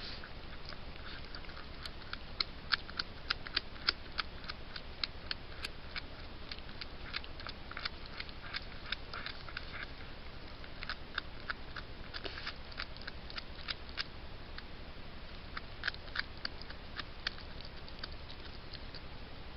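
Fisher chewing and tearing at a beaver carcass: irregular crunching clicks, several a second, in busy runs. Underneath is a steady low hum and hiss from the trail camera's microphone.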